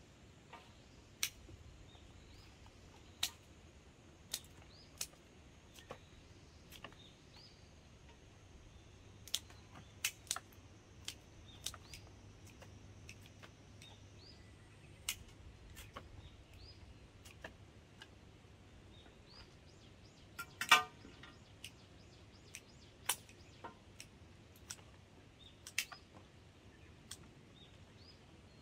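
Sharp, irregular clicks of garden shears snipping hydrangea stems into cuttings, with a louder rattle of several clicks about two-thirds of the way through. Faint bird chirps are in the background.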